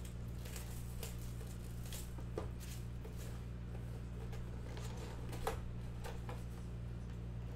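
Light rustling and tapping as a cardboard trading-card hobby box is handled and its flap opened, with one sharper click about two-thirds of the way through. A steady low hum runs underneath.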